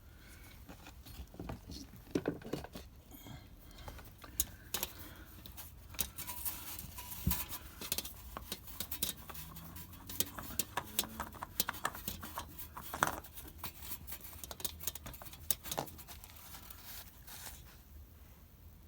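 Irregular light clicks, taps and patter as a motorcycle oil filter is worked loose and spun off by hand, with oil dribbling out.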